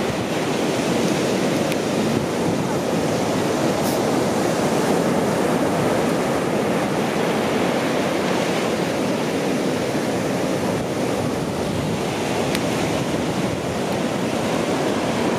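Ocean surf breaking on the shore: a steady, unbroken wash of waves.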